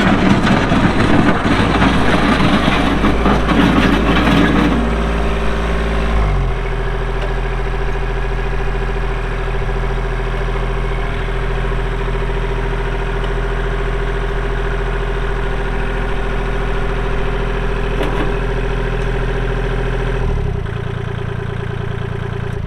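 Kubota L2501 tractor's three-cylinder diesel engine running. It is louder and busier for about the first five seconds, then settles to a steady idle.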